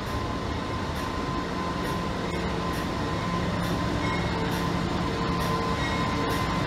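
NR class diesel-electric locomotive running slowly towards the carriages with a steady engine hum, growing a little louder as it draws nearer.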